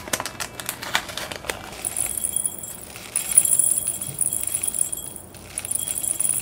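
A plastic packet crinkling and clicking as it is opened, then dry Orbeez water beads poured from it into a glass jar: a steady high hissing rattle of tiny beads on glass that stops briefly twice.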